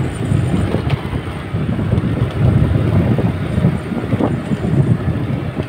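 Riding a motorbike along a rough, cracked concrete lane: a loud, uneven low rumble of wind on the microphone mixed with tyre and engine noise, with small knocks from bumps in the road.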